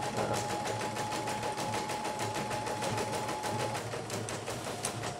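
YOKO portable computerized embroidery machine stitching out a design: rapid, even needle ticking over a steady motor whine that steps down slightly in pitch about four seconds in. It is a test run after servicing, with the machine running smoothly.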